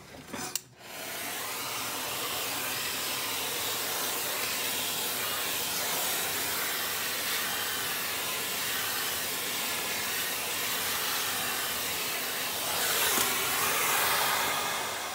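Vacuum cleaner running, its hose fitted with a soft bristle brush attachment, drawing soot out of a wood-burning fireplace insert around the catalytic combustor. It starts about a second in as a steady rushing hiss, grows briefly louder near the end and then fades away.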